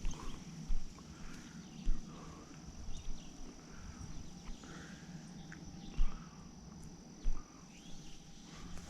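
A steady, high insect trill runs throughout, with scattered short thumps and rustles from movement through vegetation.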